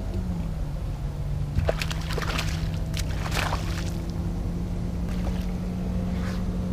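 A hooked bass splashing and thrashing at the surface beside the boat, in a burst of splashes about two to three seconds in, over the steady hum of the boat's bow-mounted electric trolling motor.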